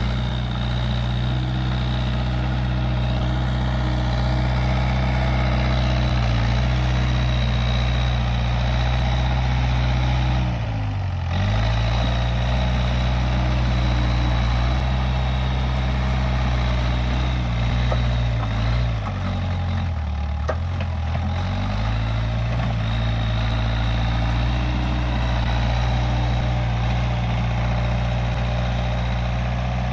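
Case 580G backhoe loader's diesel engine running steadily at working speed. Its pitch sags briefly and recovers about a third of the way in, and again about two-thirds of the way through.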